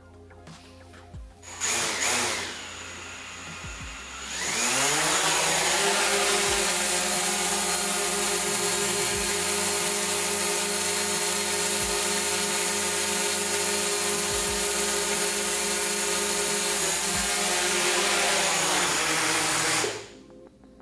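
Quadcopter drone's four propellers starting up, then spinning up with a rising whine about four seconds in as it lifts off, and holding a steady high buzzing hum while it hovers. Near the end the pitch drops and the motors cut off as it lands.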